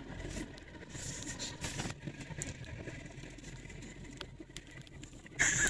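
Low, steady road and engine hum heard from inside the cabin of a moving car, with a few light ticks and a short louder burst of noise near the end.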